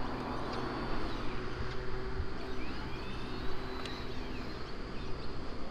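Steady background hum and hiss with faint even tones. A bird call rises and falls a few times about halfway through.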